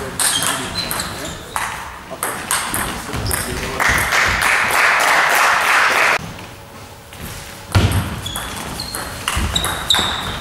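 Table tennis ball being hit back and forth in a doubles rally: quick sharp pings of the ball off bats and table, echoing in a sports hall. About four seconds in, the rally gives way to a couple of seconds of crowd noise, and after a short lull a thump and a new run of ball hits begin.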